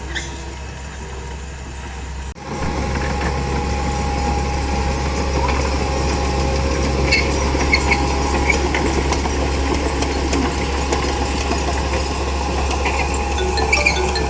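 Komatsu D31P bulldozer's diesel engine running steadily, with scattered light metallic clinks. The sound drops out for an instant about two seconds in and comes back louder.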